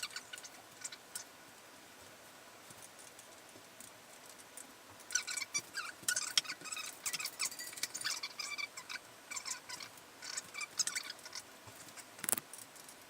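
Squeaks, scrapes and small clicks from hands working a bicycle handlebar's grip and fittings, mostly quiet at first and then busy from about five seconds in, with one sharper click near the end.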